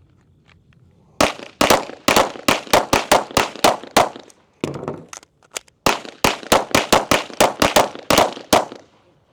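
A pistol fired in a fast string of shots, then a short pause near the middle for a reload, then a second fast string of shots, as in a timed practical-shooting drill.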